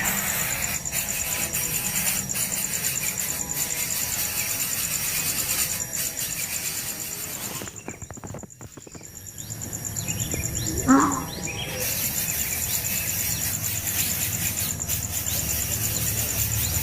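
Outdoor ambience dominated by a steady, high-pitched, fast-pulsing insect trill, which drops out briefly about eight seconds in. About eleven seconds in there is one short, loud call.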